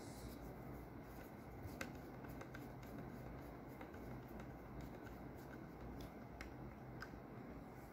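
Faint, irregular small clicks and scraping from a screwdriver turning a small screw to fasten a laptop's CPU cooling fan in place, over a steady low hum.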